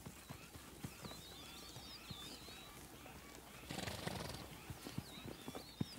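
Plains zebra herd milling close together: soft, scattered hoof steps and shuffling, with a brief louder burst of noise about four seconds in. Faint high chirping runs underneath.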